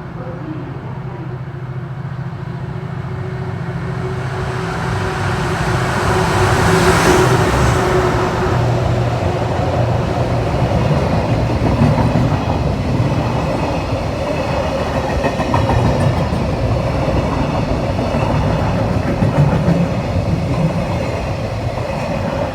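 Freight train passing close by: the sound builds as the locomotive approaches, is loudest about seven seconds in, then the wagons roll past in a continuous rumble with wheel clatter.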